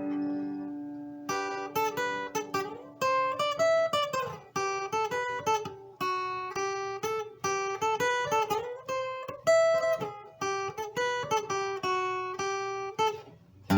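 Newly strung and tuned acoustic guitar being played: a chord rings out and fades, then from about a second in a melody of single plucked notes.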